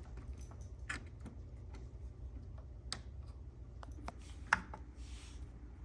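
Irregular light clicks and taps of small computer hardware being handled, with one sharper click about four and a half seconds in.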